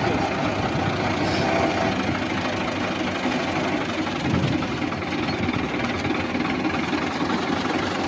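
Old Fiat 480 (Al-Ghazi) tractor's diesel engine idling steadily.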